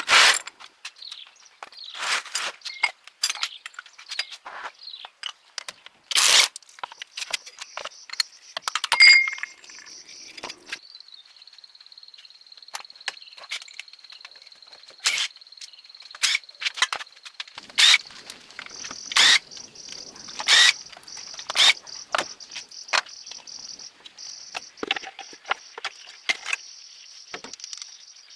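Irregular sharp clicks and knocks, a few seconds apart, from work on the dump truck. From about a third of the way in they are joined by a steady high chirring of insects.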